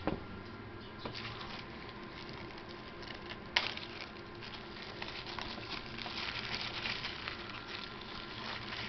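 Small zip-lock plastic bag crinkling and rustling as it is handled, with a sharp click about three and a half seconds in.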